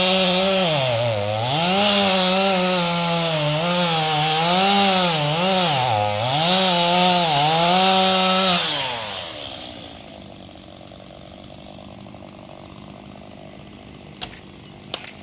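Chainsaw running at high revs while cutting into the trunk of a dead oak, its pitch dipping twice as the chain bogs down in the wood. About nine seconds in the engine winds down and fades, leaving a much quieter background with a few light clicks near the end.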